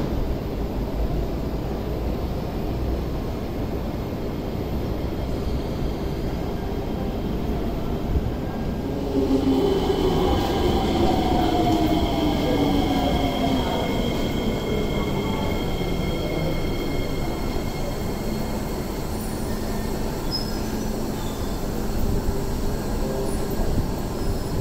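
Kawasaki–CSR Sifang C151B metro train pulling away. About nine seconds in its Fuji Electric IGBT-VVVF traction inverters start to whine, with high steady tones and a cluster of tones gliding in pitch, over rolling wheel and track noise.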